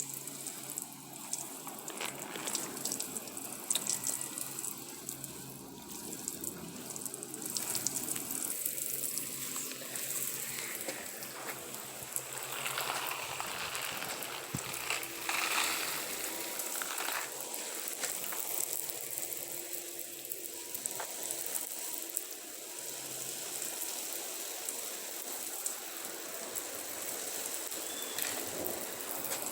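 Heavy storm rain pouring, with water gushing and running and many sharp drop impacts close by.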